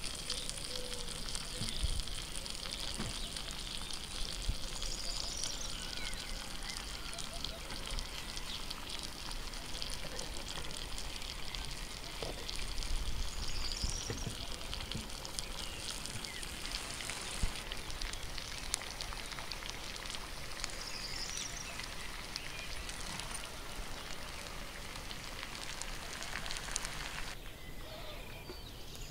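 A hot pan of food, sealed under a baked bread crust, sizzling and crackling: a steady hiss full of small pops that cuts off suddenly near the end. Birds chirp now and then.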